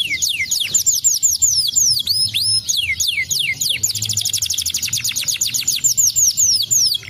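Domestic canary singing: a continuous run of quick, high notes that each slide down in pitch, breaking about four seconds in into a rapid, tightly repeated trill before the falling notes return.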